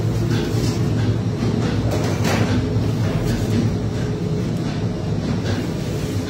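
Bakery bread oven's burner running with a steady, loud low hum, with a few light metal knocks as a baking tray is handled at the oven mouth.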